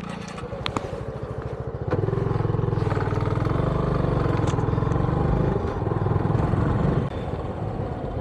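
Motorcycle engine running with a quick, even pulsing beat; it gets louder about two seconds in, holds for about five seconds, then falls back. A few light clicks near the start.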